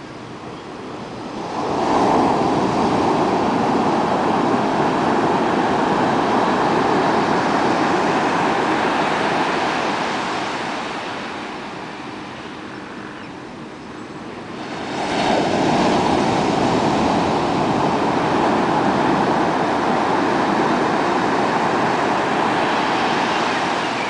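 Ocean surf breaking on a sandy beach. Two waves crash and wash up the sand, one about two seconds in and another about fifteen seconds in, each rush of foam fading away over several seconds.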